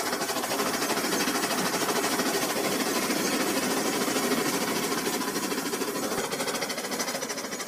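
Small electric motors of battery-powered toy trains buzzing, with their plastic wheels rattling fast along plastic track as two trains pass each other. A steady whirring rattle that fades near the end.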